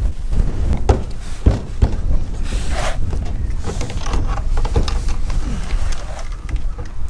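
Wind rumbling on the microphone, with several knocks and scrapes as a black plastic pipe is handled and laid over the edge of a corrugated sheet-metal shed roof.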